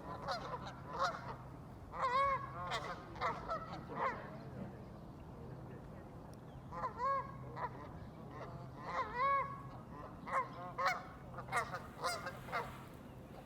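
Geese honking: a flock giving short, repeated honks in two bouts, with a quieter lull of a couple of seconds between them.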